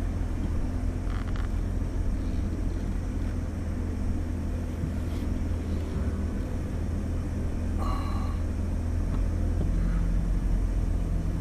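Car engine running with a steady low rumble, heard from inside the cabin. A brief faint higher-pitched sound comes about eight seconds in.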